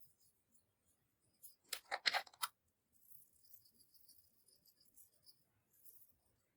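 Clear slime being pressed and worked by hand: a quick run of sharp sticky clicks and pops about two seconds in, then a faint fine crackle for a few seconds.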